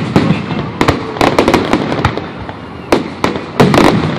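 Aerial fireworks bursting: a rapid, irregular series of sharp bangs, bunched in two flurries, one in the first half and one near the end.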